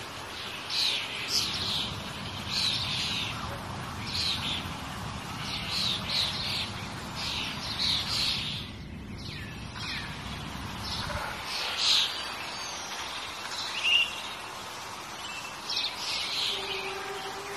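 Small birds calling repeatedly: short, quick chirps that sweep downward in pitch, coming in clusters throughout, over a low background rumble that drops away about eleven seconds in.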